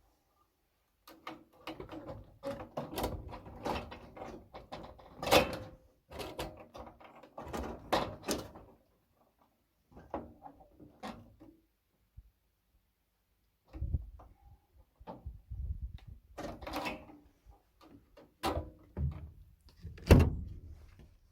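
Irregular knocking, thunking and rattling from gutter installation work, in several bursts with short gaps; the sharpest knocks come about five and twenty seconds in.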